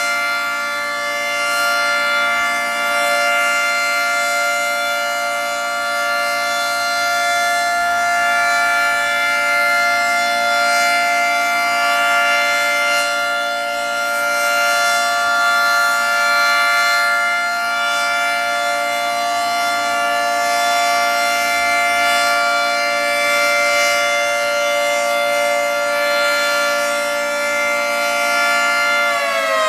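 Federal Signal 2T22 dual-tone rotating warning siren holding a steady alert chord at full speed, swelling and fading gently. At the very end its pitch starts to fall as it begins to wind down.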